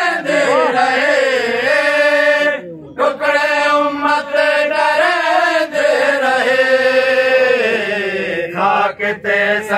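A man's voice chanting a noha, a Shia mourning lament, in long, drawn-out melodic lines with brief pauses for breath.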